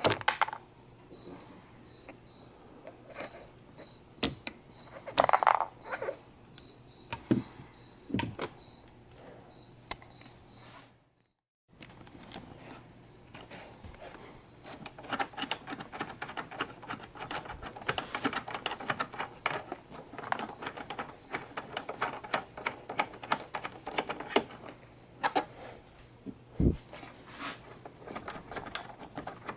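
A cricket chirping steadily, about two short high chirps a second, under scattered clicks, knocks and rattles of parts being handled, the loudest knocks about five seconds in.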